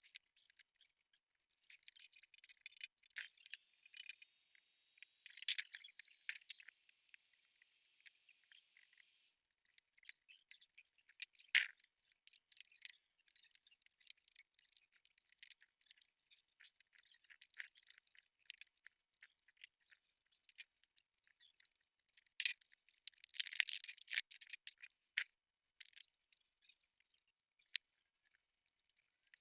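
Light clicks, taps and scrapes of small tools and plastic and metal parts being handled while an HP EliteBook laptop is taken apart and serviced, with a louder flurry of clicks about three-quarters of the way through.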